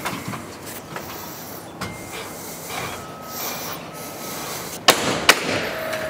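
Timber being handled against wooden roof trusses, with rubbing and light knocking, then two sharp wooden knocks close together about five seconds in.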